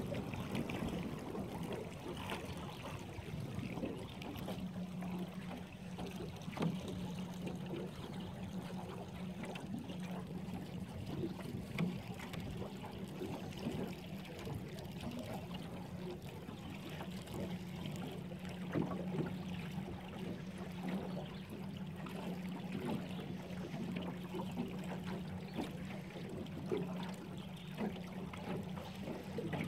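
Small aluminium boat underway on a lake: water lapping and splashing against the hull, with a steady motor hum that starts about four seconds in.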